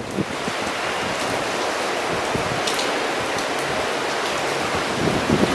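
Steady downpour of typhoon rain with wind. Gusts rumble on the microphone just after the start and again near the end.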